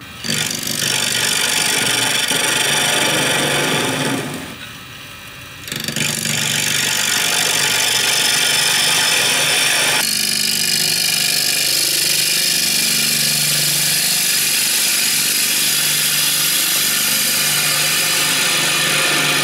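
A gouge cutting into a spinning sycamore bowl blank on a wood lathe: a loud, steady hiss of wood being cut as shavings fly, over the lathe's hum. The cut eases off about four seconds in and picks up again a second or two later.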